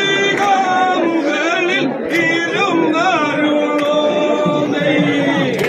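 A group of men singing vanchipattu, the Kerala boat song, in chorus without instruments, with long held notes.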